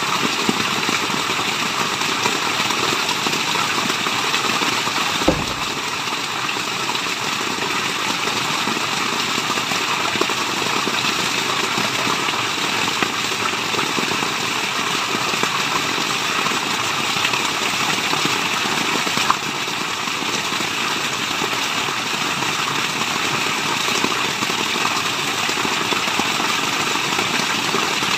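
Steady rushing of a waterfall, an even dense wash of falling water, with a brief low thump about five seconds in.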